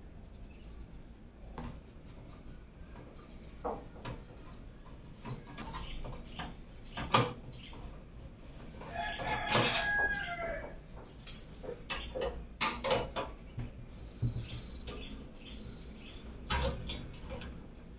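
Scattered clicks and knocks of computer case parts and components being handled during a PC build, with a drawn-out pitched call about nine seconds in.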